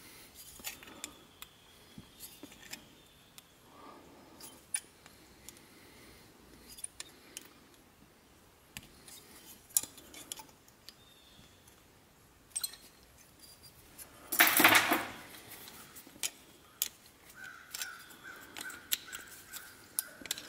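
Light metallic clicks and clinks of vise grips and pliers working thin copper petals, with one louder scrape lasting about a second a little past the middle and a faint steady tone near the end.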